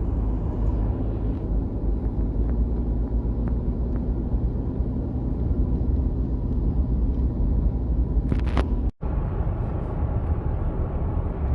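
Steady road and engine rumble heard from inside a moving car. A couple of faint ticks come about eight seconds in, and the sound cuts out for an instant just after.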